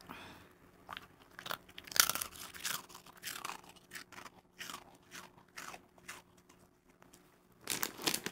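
Toy poodle crunching and chewing a small round hard treat: a series of irregular crisp crunches.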